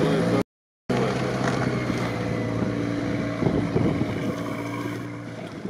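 Engine of a short-wheelbase Toyota Land Cruiser 70-series running at a steady pitch as it drives through deep snow. The sound cuts out briefly about half a second in and fades somewhat near the end.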